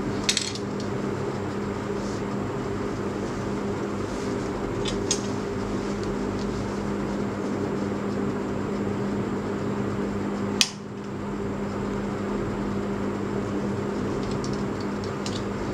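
Steady machine hum running in the room, with a few light clicks and one sharp click about ten and a half seconds in.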